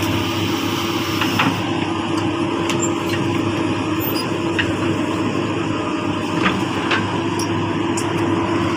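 Large crawler excavators' diesel engines running steadily at a constant pitch, with a few light clicks here and there.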